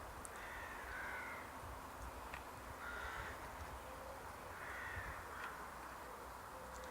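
A bird calling three times, about two seconds apart, against faint outdoor background.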